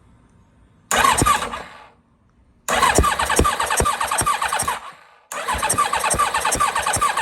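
Kawasaki ZX-7R's electric starter cranking its inline-four engine in three bursts with short pauses between, a steady pulsing whir that never catches and runs. It cranks without starting: the owner blames bad coil packs for the missing spark.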